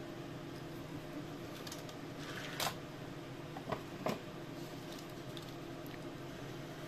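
Steady low room hum, with three light clicks a little after two and a half seconds, near four seconds and just after four seconds as small diecast toy cars are set down and picked up on a table.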